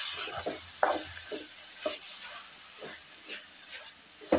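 A steel spatula stirs and scrapes shredded cabbage and potatoes around a metal kadai in irregular strokes, about two a second. Beneath it is a steady sizzling hiss from the frying.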